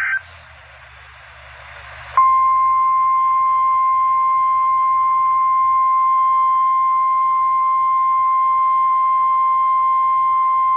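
NOAA Weather Radio's 1050 Hz warning alarm tone, signalling that a weather warning broadcast is about to follow. It is one steady, unbroken high tone that starts about two seconds in, after a moment of radio hiss, and holds on without a break.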